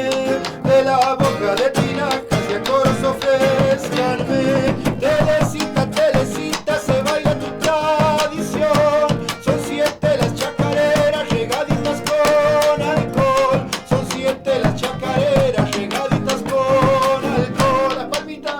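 Live folk band playing: guitar, bass and hand percussion keeping a steady beat under a wavering melody line.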